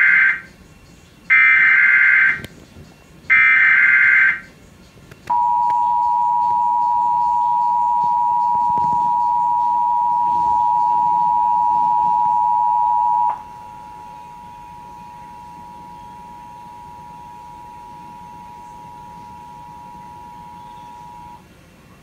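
Emergency Alert System broadcast of a tornado warning: the end of the first and then two more of the short digital SAME header data bursts, about a second each, followed by the EAS two-tone attention signal (853 Hz and 960 Hz sounded together) as a steady tone. The attention tone drops much quieter about 13 seconds in and stops about 21 seconds in. Heard through a television speaker.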